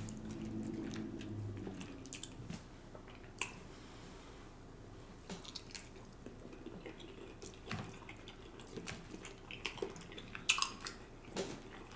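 A person eating: a fork working through food in a takeout bowl, a forkful taken, then faint wet chewing with scattered short mouth clicks.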